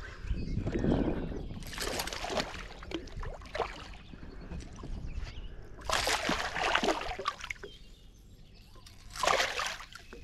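A hooked smallmouth bass thrashing and splashing at the water's surface beside the boat, in three bursts: one about two seconds in, a longer one in the middle, and a short one near the end.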